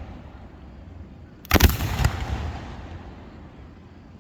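Firework display: one sharp bang about a second and a half in, two or three more reports close behind it, then a low rumble that slowly fades.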